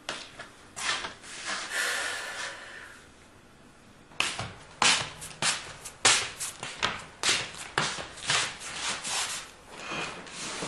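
Irregular knocks, taps and rustles of someone moving about and handling things: a few in the first seconds, then a quick run of a dozen or so sharp taps from about four seconds in.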